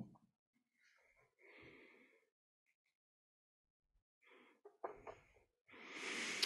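Handling noise on a clip-on lapel microphone: a knock at the start, then soft rustles as hands rub the mic and clothing, with the loudest, longest rustle near the end.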